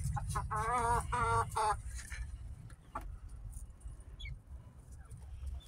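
Silkie chickens calling: two short wavering clucks in the first two seconds, then a few faint high chirps about four seconds in.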